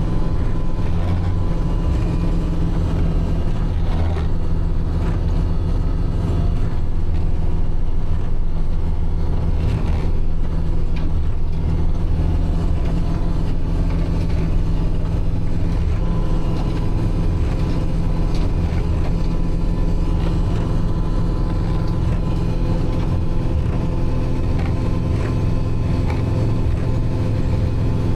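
Kubota tractor's diesel engine running steadily, driving a rear three-point-hitch snowblower as it clears snow.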